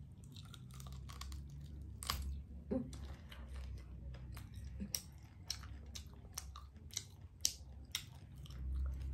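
Eating fried chicken: biting into it, pulling it apart and chewing, with many sharp, irregular crunches, a few a second.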